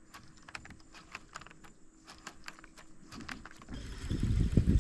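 A run of light, irregular clicks and ticks, several a second, then a low rumble rises near the end.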